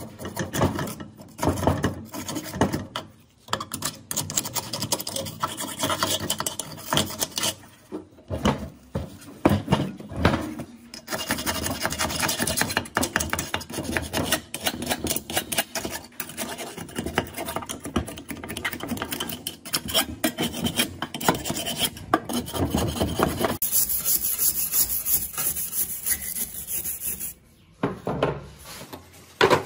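Rapid back-and-forth scraping and rubbing by hand, like filing or sanding rust from a part. The strokes change character about three-quarters of the way through and stop briefly near the end.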